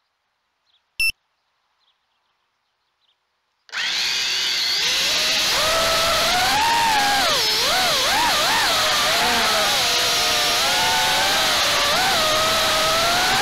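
Small 3-inch FPV quadcopter's brushless motors and propellers spinning up suddenly about four seconds in, then a steady loud whine that rises and falls in pitch with the throttle as it flies, heard close on the onboard camera.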